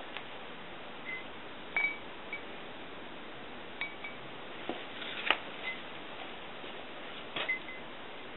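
Several light clinks and taps of metal clips and fingers against drinking-glass rims as wet paper-filter strips are lifted out of the glasses, a few of them leaving a brief high glassy ring.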